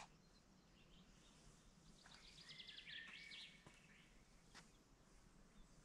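Near silence with a faint songbird singing one short phrase of quick repeated high notes about two seconds in, and a few scattered faint chirps.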